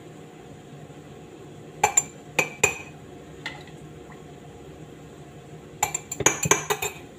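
Spoon clinking against the inside of a cup as it stirs. Three clinks come about two seconds in and one more a second later, then a quick run of clinks near the end.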